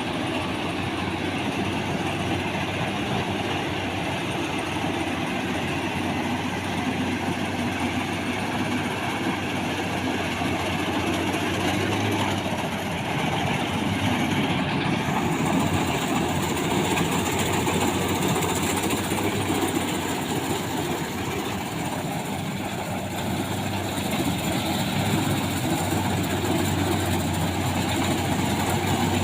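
Combine harvester running steadily while cutting rice: a continuous engine and machinery drone with no breaks.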